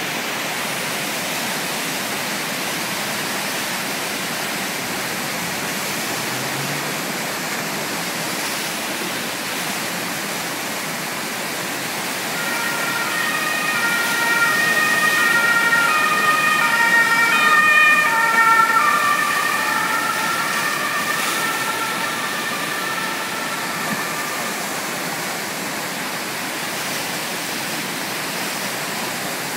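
Steady rush of whitewater from the Eisbach's standing river wave. About twelve seconds in, a two-tone emergency-vehicle siren rises out of it, is loudest a few seconds later, then fades away.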